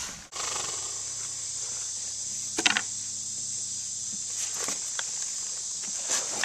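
Electric power grinder running against a horse's hoof wall, a steady high-pitched grinding hiss that starts abruptly just after the beginning, with two short knocks, one near the middle and one near the end.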